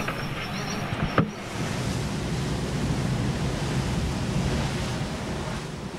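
Steady rush of wind and sea on the microphone aboard a sailing yacht under way. In the first second there is a faint high whine from a quadcopter drone just released by hand, ended by a sharp click about a second in.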